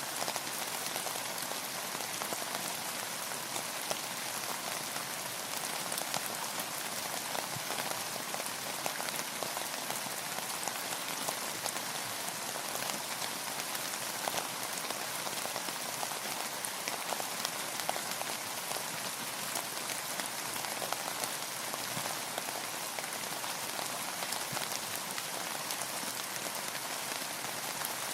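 Steady rain falling, a dense even patter of drops hitting a surface with countless fine ticks.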